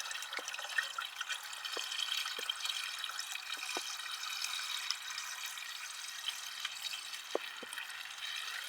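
Windshield washer fluid pouring from a jug into a car's washer-fluid reservoir: a steady splashing pour with a few short plops.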